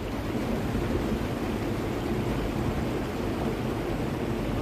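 Steady low rushing noise of wind buffeting the microphone outdoors.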